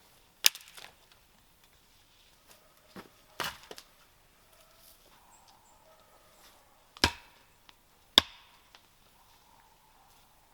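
Wood being chopped with a bladed tool: four sharp, irregularly spaced blows, with a few lighter knocks around the second one.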